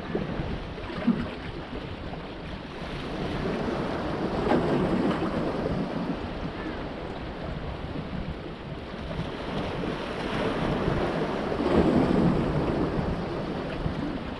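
Sea waves washing in among the large stones of a rock breakwater, surging twice, about four seconds in and again near the end, with wind rumbling on the microphone.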